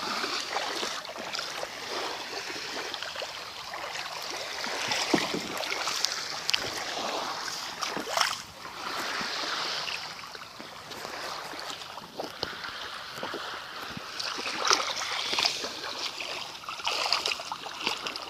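Small waves lapping and washing on a sandy shoreline, a steady splashy hiss with scattered little splashes.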